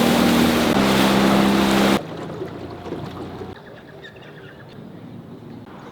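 A motorboat engine running steadily with wind and water rush. About two seconds in it cuts off abruptly, giving way to much quieter water and wind noise.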